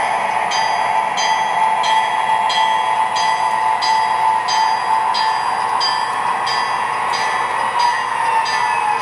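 MTH O-gauge CSX SD40-2 model diesel locomotive running with its Proto 2.0 sound system: a steady engine hum over running noise, with a rhythmic clickety-clack about twice a second.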